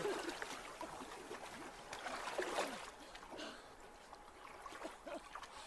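Lake water lapping and splashing softly around a swimmer treading water, with her short, heavy breaths after surfacing.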